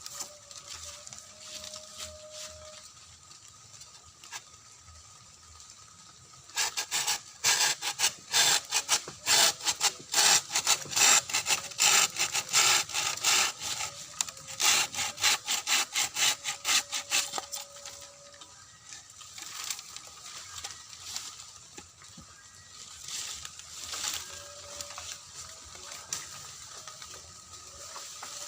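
A saw cutting through a bamboo culm in quick back-and-forth strokes. The strokes start about six seconds in and come thick and loud, then turn sparser and quieter in the second half.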